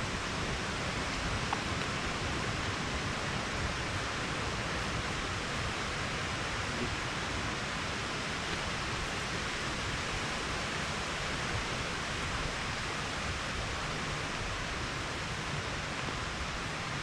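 Steady rush of running water from a woodland stream, an even hiss that holds at one level throughout.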